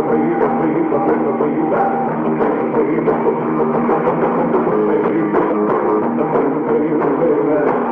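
A rock and roll band playing live, drums and electric guitar carrying an instrumental passage with no singing. The sound is muffled, as on an old recording.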